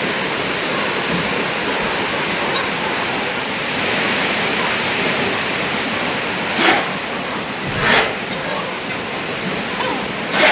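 A large flock of young chickens in a poultry house calling all at once, a dense steady din. Three short, sharp knocks or clatters stand out in the second half.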